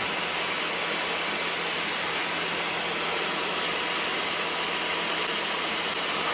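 Steady cockpit noise of a Czech Sport Aircraft SportCruiser light sport aircraft in flight: engine and airflow as an even hiss with a faint steady hum.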